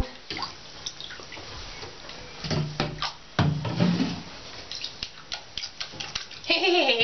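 Water splashing and dripping in a bathtub as a wet cat is washed by hand, with scattered sharp splashes and drips. Near the end a long, wavering cat yowl begins.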